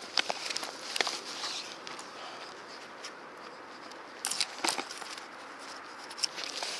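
Scattered scuffs and sharp knocks of footsteps and handling on a concrete riverbank, over a faint steady hiss, with a short cluster of louder knocks about four and a half seconds in.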